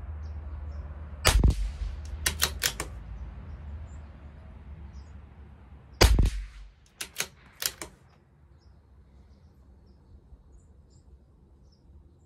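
Two shots from a CZ 457 LRP bolt-action .22 LR rifle firing Geco rimfire ammunition, about five seconds apart. Each shot is followed about a second later by three or four quick clicks of the bolt being worked to chamber the next round.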